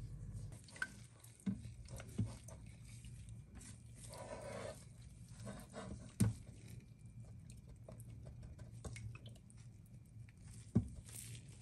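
Faint handling sounds of a ladle working in a pot of chicken stew: soft scrapes and clicks with a few sharper knocks against the pot, over a low steady hum.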